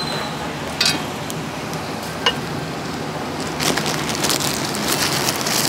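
Street-food stall noise, steady throughout, with a few sharp clicks. A little past halfway a dense run of crackling, rustling clicks begins: handling at the stall.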